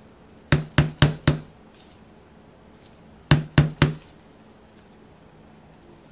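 A screwdriver handle tapping a flat bit to drive the heat-warmed piston pin out of an O.S. FF-240 Pegasus model engine's piston. It gives four quick sharp knocks, then after a pause of about two seconds three more.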